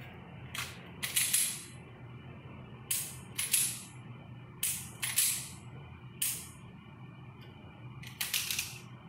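Semi-automatic pistol being loaded and handled during the make-ready: short metallic clicks and clacks of the slide and magazine, several coming in pairs about half a second apart. A steady low hum runs underneath.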